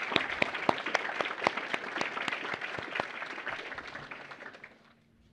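Audience applauding, a crowd's clapping that dies away after about four and a half seconds.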